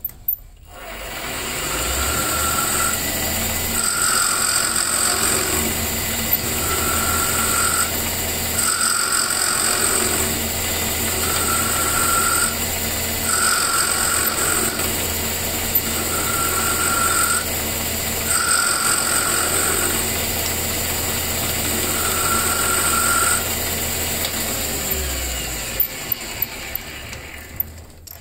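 Small metal lathe running, its four-jaw chuck spinning while the tool turns down an orange G-10 ferrule on a carbon fibre cue shaft. The motor starts about half a second in, a high whine comes and goes in even pulses about every two seconds, and it winds down near the end, followed by a few clicks.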